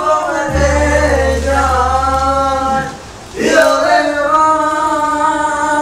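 Two men singing loudly together in long, drawn-out, wavering notes, a drunken singalong. A low steady hum runs under the first half, and the singing breaks off briefly just after three seconds before starting up again.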